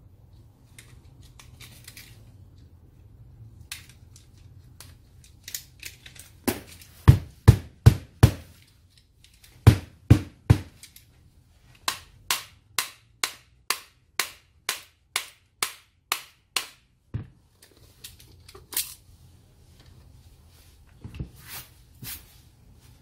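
Hammer blows on the metal parts of a Keyang ACT-100SN disc grinder. A few heavy strikes come first, then an even run of sharp blows at about two a second, then a few scattered taps near the end.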